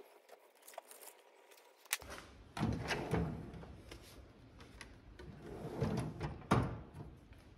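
Drawer of a Husky metal tool chest sliding open on its metal runners, then, a few seconds later, pushed shut with a sharp knock. Before it, the faint scratching of a scratch awl drawn along a template on leather.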